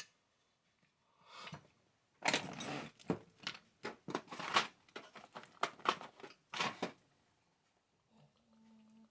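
Handling noise as chainsaw parts are worked on a towel-covered bench: a run of short rustling and scraping bursts with a few sharp clicks. The fuel tank is being fitted to the powerhead.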